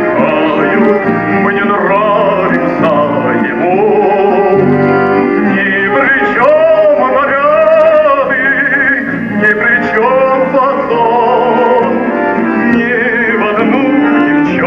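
A man singing solo into a microphone over instrumental accompaniment, his long held notes sung with a wide vibrato.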